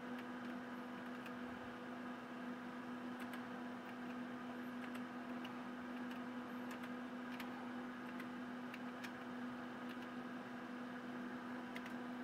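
Steady hum and hiss from powered-up bench test instruments, pitched low with a few fainter higher tones, and a few faint scattered ticks.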